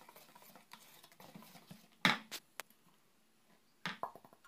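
Wire whisk stirring thick cake batter in a plastic bowl, soft scraping with a few sharp knocks about two seconds in and again near the end.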